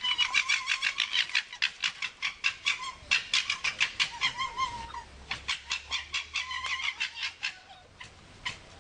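Red fox giving a fast chattering run of short calls, about five a second, with a brief break around the middle.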